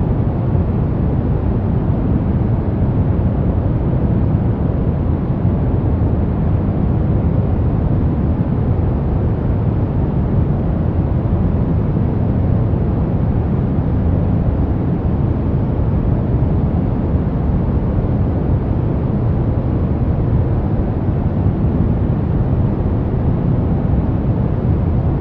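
Steady brown noise: an even, deep rumbling hiss weighted toward the low end, unchanging throughout.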